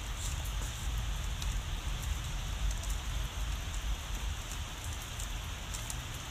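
Steady rain falling on a wet driveway and lawn: an even hiss with scattered sharp drop ticks.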